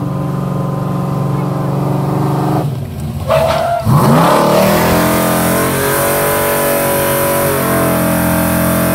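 Pickup truck engine running hard, then cutting back about two and a half seconds in as the truck stops. Around four seconds in the engine revs up again and stays high, joined by a loud, steady hiss of water jetting from a fire hose.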